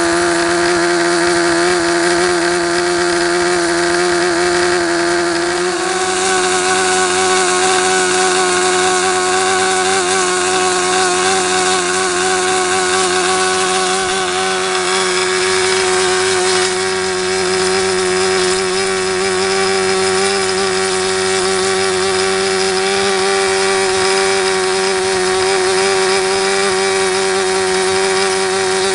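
SuperTigre G51 two-stroke glow engine turning a 10x6 propeller at high speed, running steadily with a slight rise in pitch about six seconds in. It is a break-in run on a freshly rebuilt engine, still held below its peak speed.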